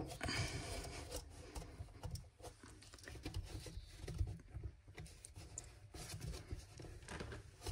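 White plastic sink waste fittings being twisted and adjusted by hand: faint rubbing with scattered light clicks, the sharpest right at the start.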